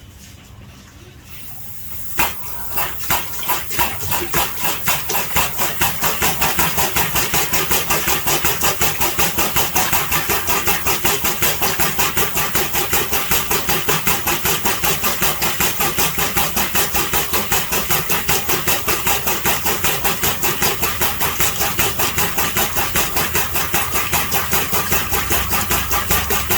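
ARO 66605J-344 air-operated double-diaphragm pump running on test after an overhaul: it starts with a sharp burst about two seconds in, picks up speed, then cycles steadily at about five strokes a second, each stroke a puff of exhaust air.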